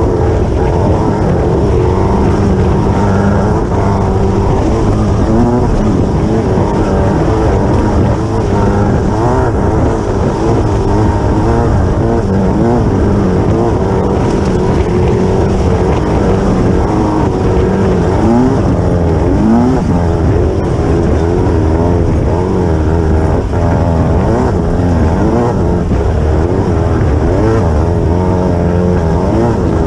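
Class 9 off-road race buggy's engine running hard, heard onboard at close range, its pitch rising and falling again and again as the revs change, over a constant din of the car at speed.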